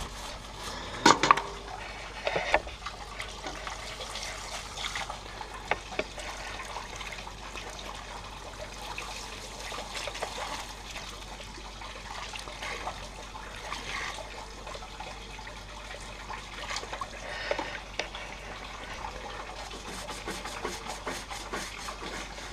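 Garden hose spraying water onto a metal panel, rinsing off caustic paint stripper and loosened paint, with scrubbing against the metal and a few sharp knocks about a second in.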